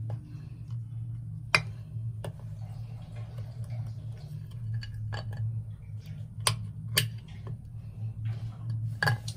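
A knife cutting a bar of white soap into chunks on a plate: scattered sharp clicks and taps, about half a dozen, as the blade goes through the soap and strikes the plate, over a steady low hum.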